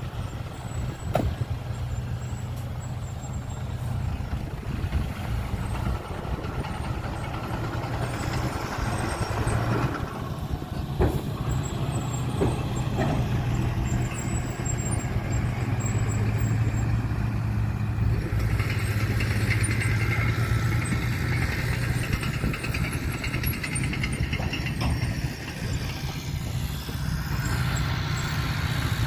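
Dump truck engine running steadily, with a few brief knocks.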